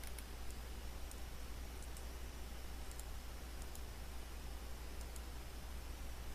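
Computer mouse clicking, about eight small sharp ticks at irregular intervals, over a steady low electrical hum and hiss.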